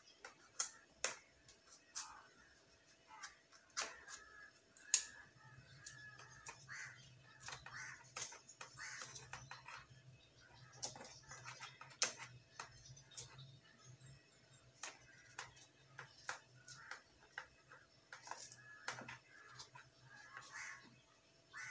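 A long knife peeling and slicing butternut squash over a plastic basin: faint, irregular clicks and scrapes of the blade, with a low steady hum starting about five seconds in.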